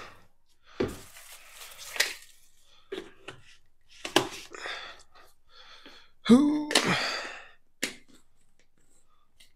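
Protein shake being made by hand: a series of clicks and knocks from the container and scoop, with a few short stretches of even noise between them, and a brief vocal sound a little past halfway.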